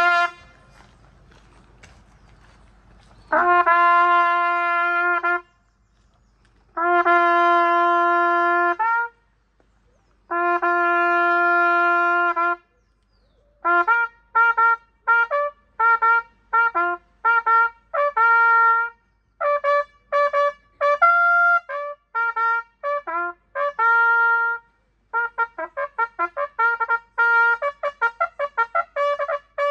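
A solo brass instrument, in the manner of a trumpet, playing slowly: three long held notes on the same pitch, then a run of short, quick notes jumping between several pitches.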